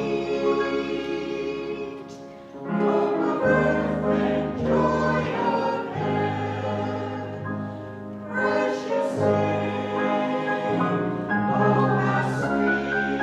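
Church music: voices singing in chorus over held accompaniment chords with a steady low bass line, in phrases with a brief dip about two and a half seconds in and another about eight seconds in.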